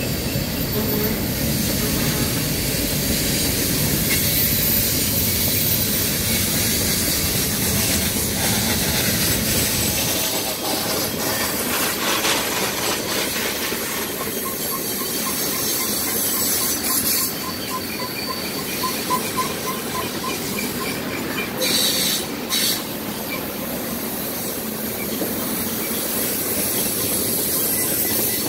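Freight cars, open-top gondolas then tank cars, rolling past on the rails with a steady rumble of steel wheels and thin high wheel squeal. The deep rumble thins out about a third of the way through, and a few sharp clacks come in the second half.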